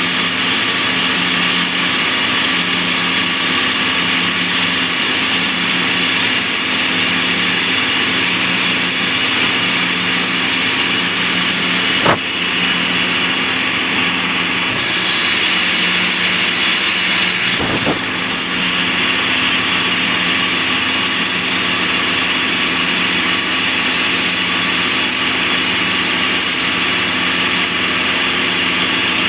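Down-the-hole drill rig running steadily while drilling, heard from inside the rig's cab. There is a single sharp click partway through and a brief knock a few seconds later.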